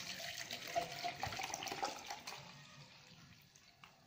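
Water poured from a plastic bottle into a plastic measuring beaker, splashing into it with a gurgle from the bottle neck. The pour fades after about two and a half seconds.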